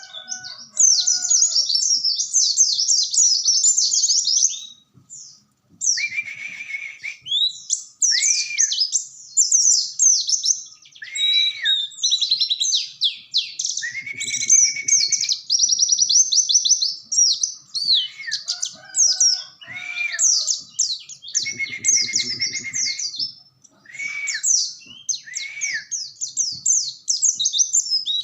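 White-eye (pleci) singing a long, rapid, high-pitched twittering song with shrill chirps and repeated lower hooked notes, pausing briefly twice.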